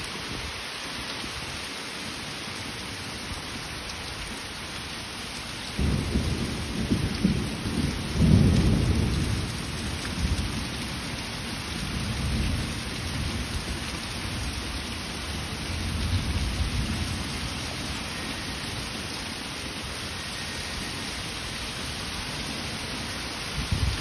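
Heavy rain pouring steadily, with thunder rumbling low. The rumble starts suddenly about six seconds in, is loudest a couple of seconds later, then rolls on in swells and fades.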